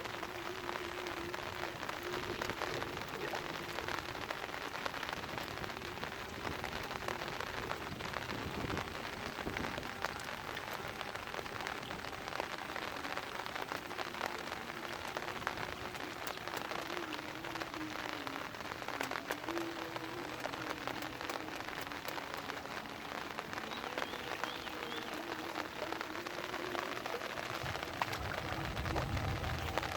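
Steady rain pattering down, a dense even hiss of many fine drops, with a low rumble swelling near the end.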